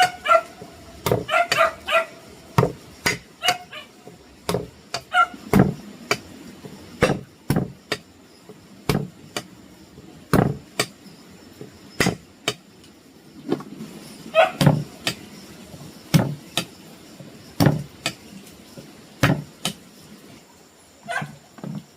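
Repeated sharp knocks, like chopping or hammering blows, at an uneven pace of roughly one to two a second. A few short high-pitched cries come near the start and again about two-thirds of the way through.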